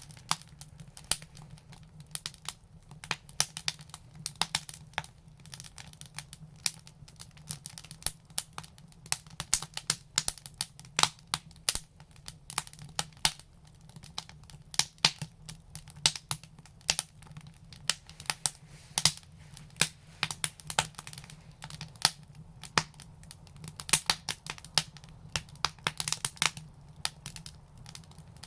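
Wood fire crackling and popping: dense, irregular snaps over a steady low hum.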